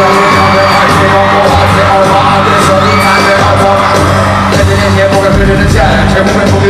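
Live hip-hop performance over an arena sound system: a rapper's vocals over a heavy electronic beat with a steady bass line, and fans screaming and whooping.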